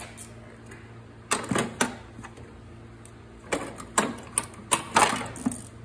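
Clicks and clatters of hands working car parts, wire connectors and the fasteners around them, in two bursts of handling, over a low steady hum.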